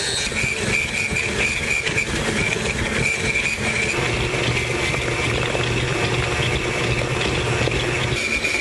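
KitchenAid stand mixer running at low speed, its flat beater creaming butter and sugar in a steel bowl: a steady motor hum with a high whine.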